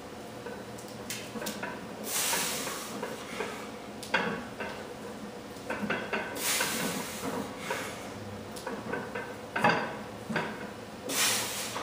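A lifter breathing hard, three sharp breaths about every four and a half seconds, during heavy barbell back squats loaded to 425 lb. The weight plates clank on the bar twice between the breaths.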